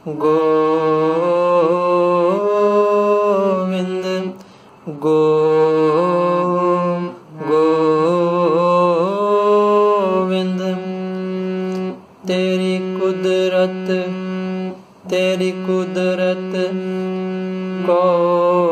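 Harmonium playing a shabad tune in phrases of two to five seconds, each ending in a short break, over a sustained low note.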